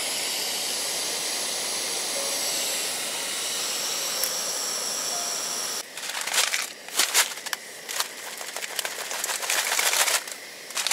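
Portable gas heater hissing steadily. About six seconds in, water and ice from a frozen bottle go into a hot pan and sizzle and crackle in irregular bursts as the frozen water is melted for drinking.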